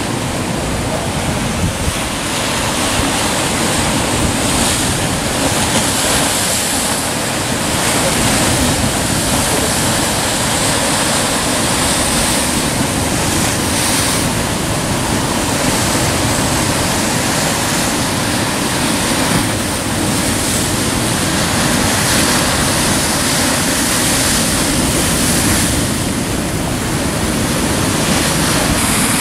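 Rough sea surf breaking continuously against a rocky lava shoreline: a dense, steady wash of water that swells and eases every few seconds.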